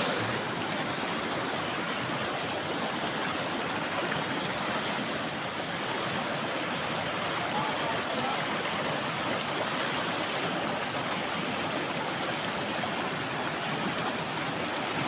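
Fast mountain river rushing over rocks in white-water rapids, a steady even rush of water.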